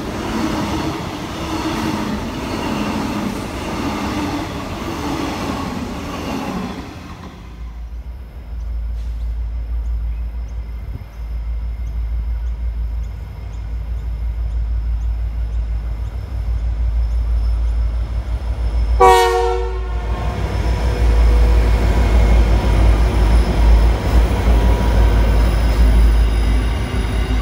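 Electric commuter train running past the platform for the first several seconds. A diesel-hauled freight train then approaches with a low rumble, its locomotive sounds one horn blast of about a second, and the noise of the locomotive and hopper wagons rolling past builds towards the end.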